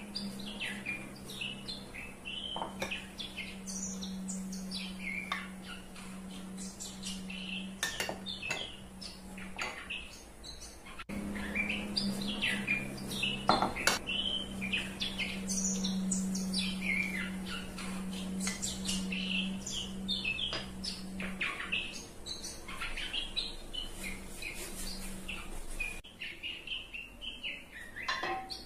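Small birds chirping continuously over a steady low hum, with a few sharp clinks of a metal spoon against a stainless steel pot, the loudest about halfway through.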